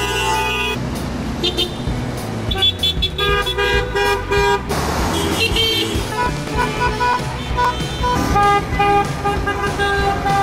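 Car horns honking in street traffic, several horns sounding in turn in short and longer blasts, answering a request for drivers to honk.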